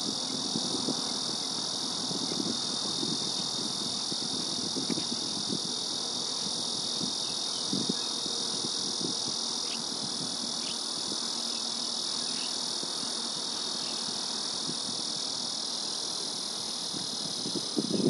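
Steady high-pitched buzzing drone of an insect chorus, unchanging throughout, with faint low knocks and rumble now and then beneath it.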